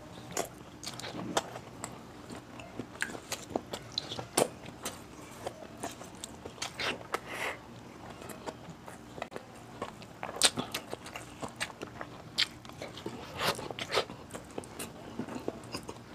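Close-miked chewing of a mouthful of spicy beef kaldereta and rice, with wet mouth sounds and many irregular clicks.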